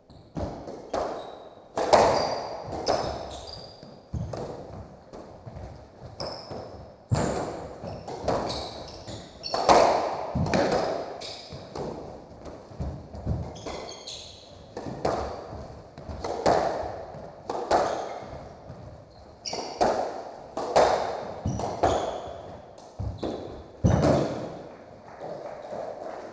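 Squash rally: the ball cracking off rackets and the court walls about once a second, each hit echoing in the court, with shoes squeaking on the hardwood floor between hits.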